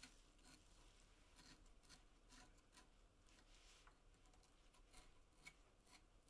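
Near silence, with faint light scrapes and small ticks scattered through it: a metal sleeve being worked down into a drilled hole in wood with a thin wooden stick.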